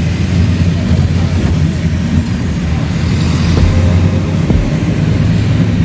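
Steady low rumble of engine and road noise from a car driving through city traffic, heard from inside the moving vehicle.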